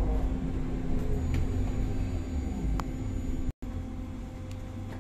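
Cabin noise of a BKM 321 trolleybus on the move: low rumble from the running gear and road with a steady electric hum, growing quieter through the second half.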